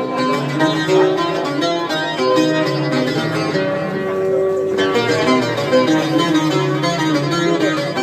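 Instrumental music led by a plucked string instrument, playing a continuous melody.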